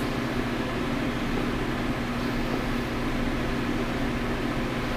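Steady mechanical hum of a running motor, an even low drone that does not change.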